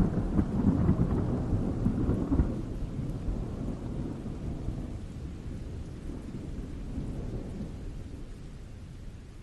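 Rolling thunder: a deep rumble, loudest in the first couple of seconds, then dying away slowly.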